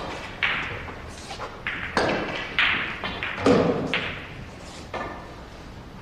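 Billiard balls clacking: a series of sharp strikes spread across a few seconds, each followed by a brief trailing sound of balls rolling on the table.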